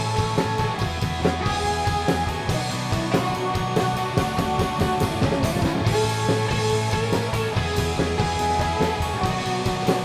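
Indie pop-rock band playing an instrumental passage between sung lines: electric guitars, bass and a drum kit keeping a steady beat.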